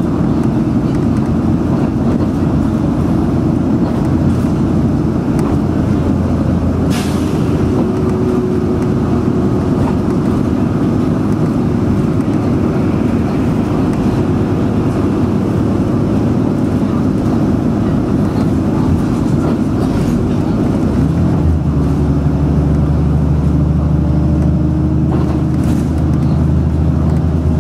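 Bus engine running and road noise heard inside the cabin while driving, with a brief hiss about seven seconds in. About three-quarters of the way through, the engine's low hum changes to a steadier, stronger note.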